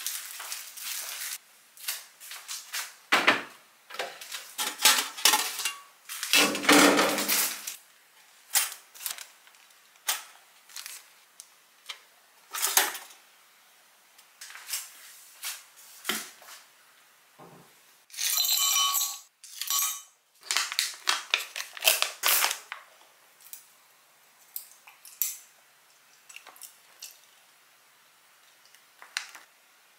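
Kitchen handling sounds: a string of separate clicks, knocks and clinks of dishes, utensils and packaging, with a retro toaster's dial being turned, and a longer rustle about two-thirds of the way through.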